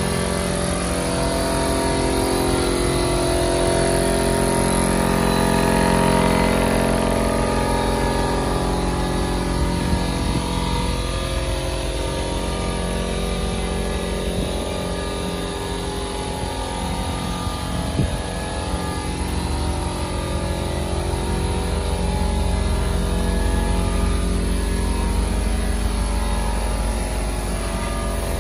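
Portable piston air compressor running steadily under load, with the hiss of a paint spray gun spraying, and one brief knock partway through.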